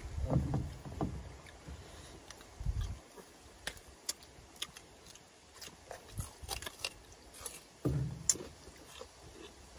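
Scattered light clicks and taps of utensils against bowls and a pan as several people eat, with low rumbling in the first few seconds and again about eight seconds in.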